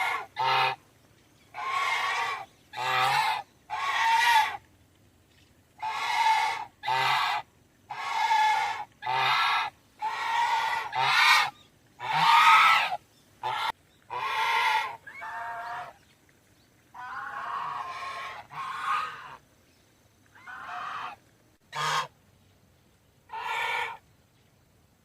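Goose honking: about twenty separate nasal honks in an irregular series, some in quick pairs, with short pauses between them.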